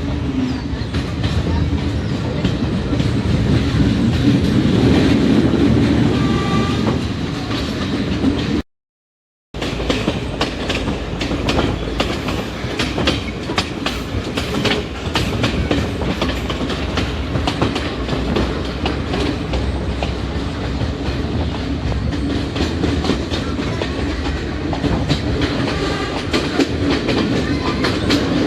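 Passenger train running along the track, heard from inside the carriage: a steady rumble of wheels on rails with frequent clicking and clattering from the rail joints. The sound cuts out completely for about a second around nine seconds in.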